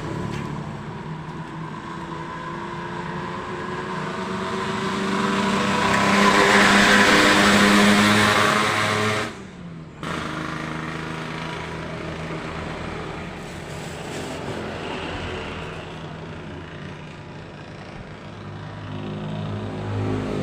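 Electric water pump running with a steady mains hum while its sealed, water-filled casing is under pressure test. A hissing rush swells to its loudest around six to eight seconds in. The sound cuts out suddenly just after nine seconds and the hum resumes about a second later.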